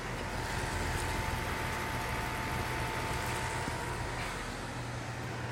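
Outdoor unit of a 2008 3-ton Goodman central air conditioner running, pretty quiet for its make. Its Copeland scroll compressor gives a steady low hum under the condenser fan's even rush of air, with a thin steady whine above.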